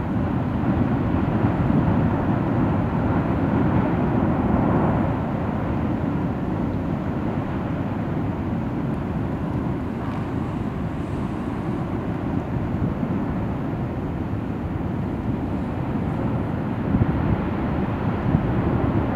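Benbow's active lava lake boiling violently and throwing up lava fountains: a steady, loud, low rumble, with a couple of brief louder surges near the end.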